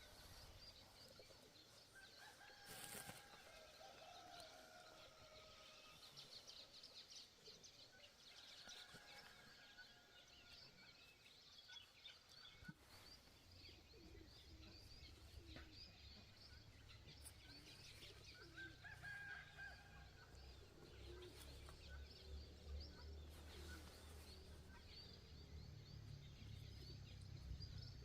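Faint chickens and small birds calling, with a few drawn-out calls and many quick high chirps. A low rumble builds from about halfway.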